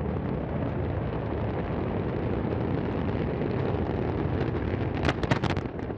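Steady rumbling roar of the exploding Antares rocket and its fire after the failed launch, with a quick cluster of sharp cracks about five seconds in, after which the roar drops away.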